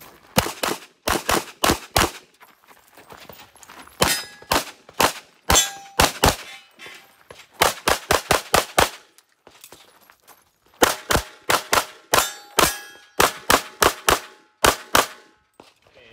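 Handgun shots fired in fast strings, about three to four shots a second, with gaps of a second or two between strings while the shooter moves through a practical pistol stage.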